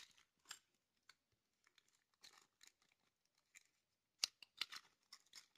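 Faint, intermittent crinkling and clicking of a small plastic packet being handled and opened by hand, with one sharper click about four seconds in.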